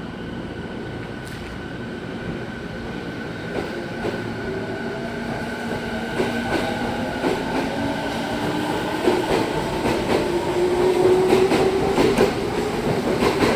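Izu Kyuko 3000 series electric train pulling away and accelerating. Its motor whine rises slowly in pitch and grows louder, while the wheels click over rail joints more and more often.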